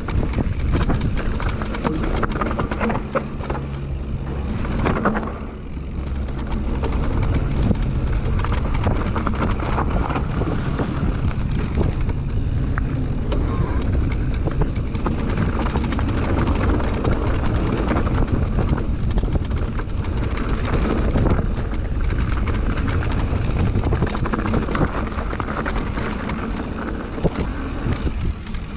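Mountain bike riding down a dirt trail: a dense low rumble of wind and tyre roar on the camera microphone, broken by many small clicks and knocks from the bike rattling over the rough ground. It eases briefly about five seconds in, then goes on.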